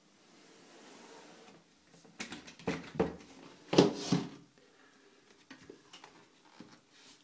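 Handling noise: a hand rubbing and pressing the padded fabric liner of a motorcycle helmet, with a burst of rustling and scraping about two seconds in that is loudest near the middle, then a few light ticks.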